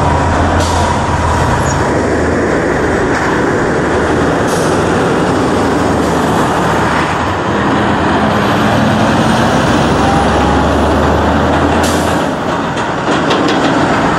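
Street traffic: engines of cars and city buses running and passing, a steady noise with a low engine hum that comes and goes.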